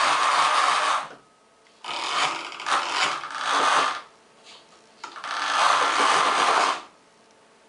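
Custom aluminium-and-brass gear drivetrain of a kinetic hyena sculpture running in spurts. It stops about a second in, comes back in short stuttering bursts for about two seconds, runs again steadily for nearly two seconds, then stops near the end.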